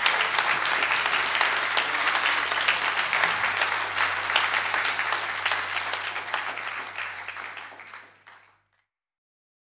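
Audience applauding, with a steady low hum underneath. The clapping fades out over a couple of seconds, starting about six seconds in, and is gone before the end.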